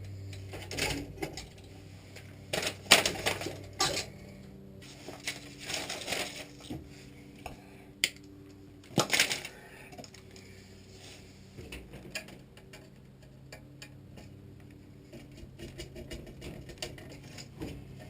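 Irregular clicks, taps and light metallic clatter of hand work on a furnace's wiring and control board, loudest about three seconds and nine seconds in, over a steady low hum.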